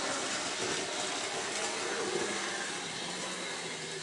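Model railway locomotive running along the track with its wagons: a steady whirr from its small electric motor and its wheels on the rails.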